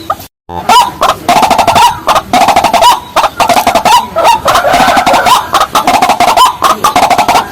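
Fast, loud, continuous run of repeated clucking calls from waterhen-type rails, many calls overlapping, with a brief cut to silence just after the start.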